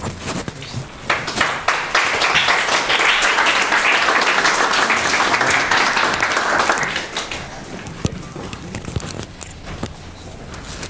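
Audience applauding: clapping starts about a second in, holds full for about six seconds, then dies away into a few scattered claps and small knocks.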